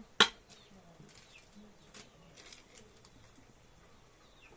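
A single sharp knock just after the start, followed by a few faint clicks and short high bird chirps in the background.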